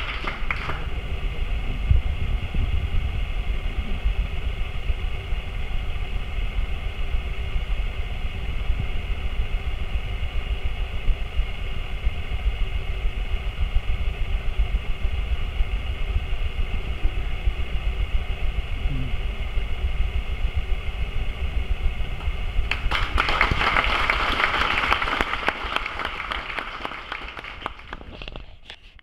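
Audience applauding, breaking out about 23 seconds in and dying away near the end, after a stretch of indistinct talk over a steady low rumble.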